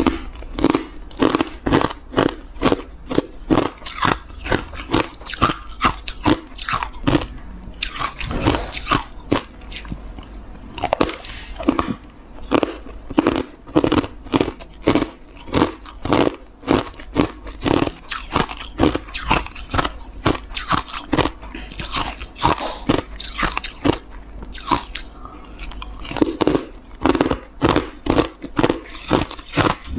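Matcha-dusted ice blocks being bitten and chewed: a steady run of sharp crunches, two or three a second, as the ice cracks between the teeth.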